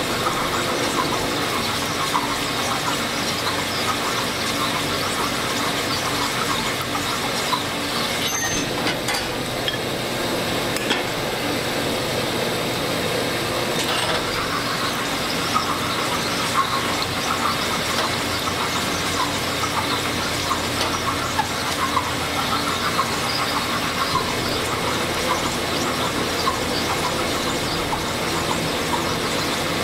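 Honing machine running steadily, its spinning mandrel cutting the inside of a new bushing in an MGB rocker arm as the arm is hand-fed on it to bring the bore to size. A constant motor hum with the scraping hiss of the hone.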